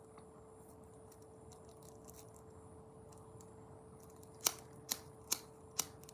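Hand-held lighter being struck repeatedly without yet lighting: four sharp clicks about half a second apart, starting about two-thirds of the way in, over a faint steady hum.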